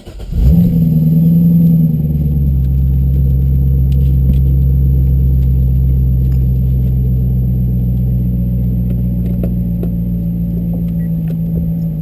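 Chevrolet Corvette Grand Sport's 6.2-litre V8 starting up about half a second in, flaring in revs briefly, then dropping at about two seconds to a steady idle.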